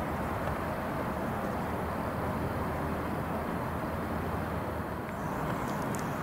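Steady rushing noise of running water trickling in a creek, with an even low rumble underneath.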